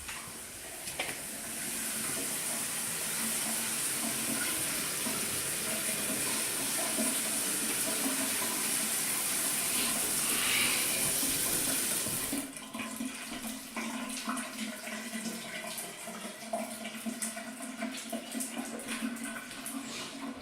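Water running steadily through household plumbing fixtures as the new system is tested for leaks. About twelve seconds in the flow cuts off suddenly, leaving a quieter, irregular trickle with small ticks.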